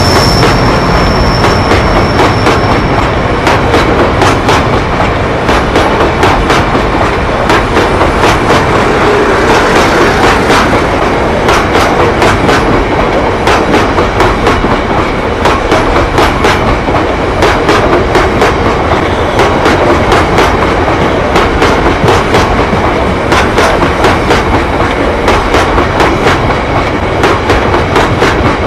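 Loaded HYA bogie hopper wagons of a roadstone train rolling past close by, their wheels clattering in a steady, rhythmic clickety-clack over a loud rumble. A thin high whine fades out about three seconds in.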